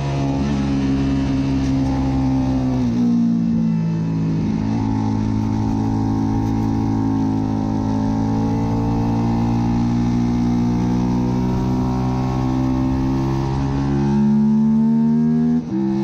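Suzuki SV650 race bike's V-twin engine running hard on track. Its note drops sharply about three seconds in, shifts slowly up and down through the middle, and briefly dips just before the end.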